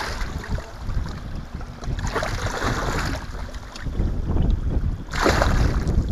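Water splashing as a muskie thrashes in a landing net beside a boat, in two bursts, one about two seconds in and a louder one about five seconds in, over a steady rumble of wind on the microphone.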